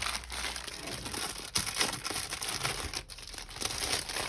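Crinkly packaging rustling and crackling continuously as a keyboard is unwrapped and handled, with a sharp click about a second and a half in.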